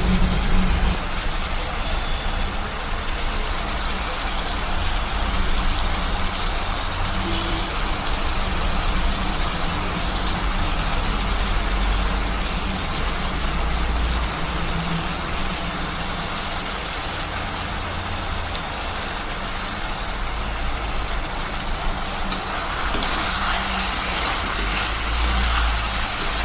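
Chicken frying in oil in a metal wok, sizzling steadily over a low, steady rumble. The sizzle grows louder near the end as the meat is stirred with a steel spoon.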